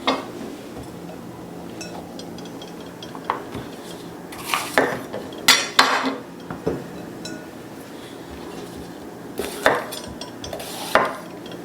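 Kitchen utensils and dishes clinking and knocking together in a handful of short, sharp, irregular knocks, over a faint steady low hum.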